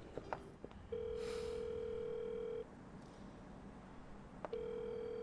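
Telephone ringback tone heard through a mobile phone's earpiece: two long steady beeps, each nearly two seconds, with a pause between, the second starting about four and a half seconds in. The called phone is ringing and has not been picked up.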